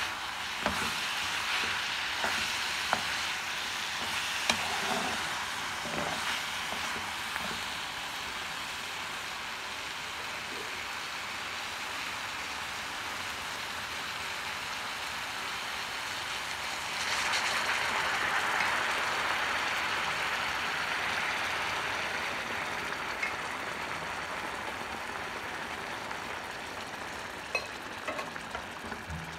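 Chicken frying in a wok: a steady sizzle, with a steel spoon clicking and scraping against the pan during the first several seconds of stirring. About seventeen seconds in the sizzle jumps louder into a hiss as liquid goes into the hot pan, then eases off as the gravy simmers.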